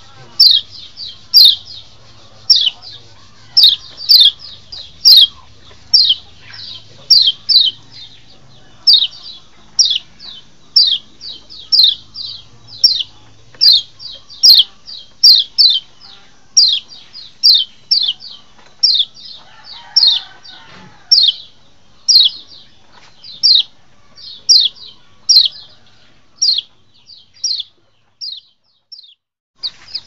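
Kecial, a Lombok white-eye, singing: quick short high chirps that fall in pitch, mostly in twos and threes, repeated about every second, thinning out and fading near the end. It is the song used as a masteran to draw wild kecial.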